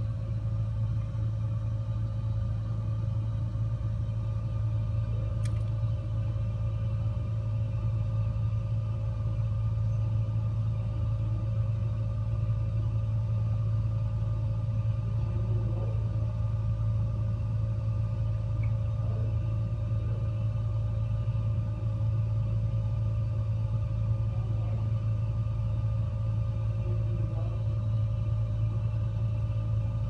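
Gas fireplace burning: a steady low rumble with a constant faint hum over it, and a single faint tick about five seconds in.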